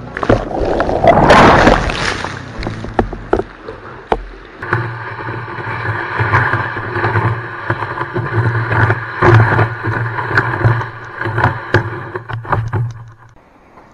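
A loud rushing whoosh of water swells in the first two seconds. After that, a steady droning hum runs with scattered sharp knocks, and it cuts off shortly before the end.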